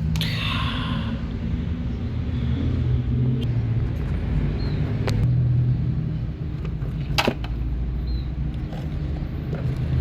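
A steady low motor rumble and hum, broken by a few sharp clicks, the loudest about seven seconds in.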